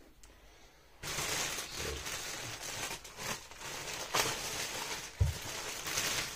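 Clear plastic bag crinkling and rustling as it is pulled off a subwoofer driver, starting about a second in, with a dull thump about five seconds in.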